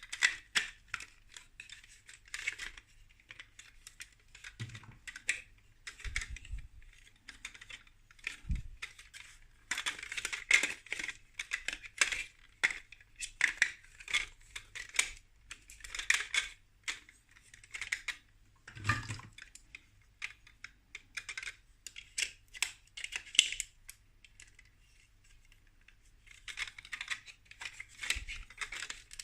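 Small plastic building bricks clicking and clattering as they are handled and pressed together, in quick irregular bursts with a short lull near the end.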